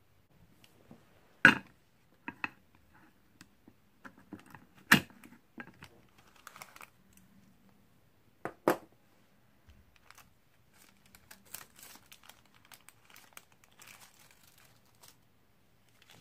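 A few sharp clacks as a metal springform pan is handled and its ring lifted off, then baking parchment crinkling and rustling as it is peeled away from the baked cake.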